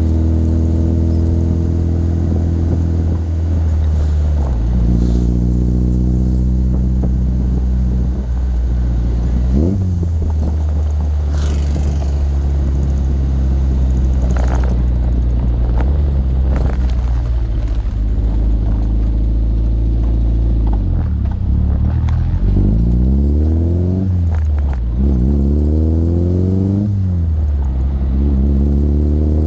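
Triumph Spitfire Mk IV's four-cylinder engine pulling the car along the road. Its note holds steady for long stretches, shifts down about four seconds in, and near the end rises and falls several times in quick succession as the revs change.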